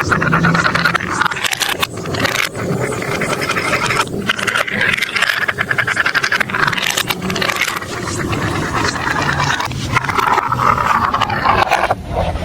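Marbles rolling and rattling along plastic marble-run tracks, a dense continuous clatter of small clicks.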